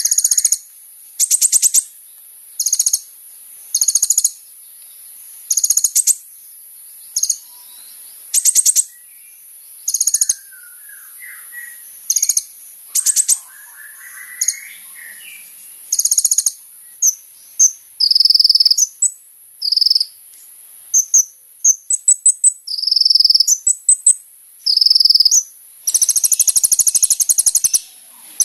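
Kolibri ninja (a sunbird) singing: very high, rapid trilled phrases about every second, breaking into quicker sharp notes in the second half and a longer continuous trill near the end, over a steady high hiss.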